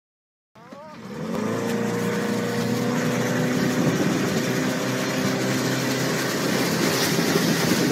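Boat outboard motor starts up about half a second in, its pitch rising as it speeds up, then runs steadily at speed under the load of towing a wakeboarder, with the rush of churning wake water.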